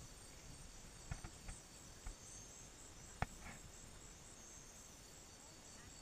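Steady high-pitched chorus of night insects in rainforest. A few soft clicks come in the first two seconds, and one sharp click about three seconds in.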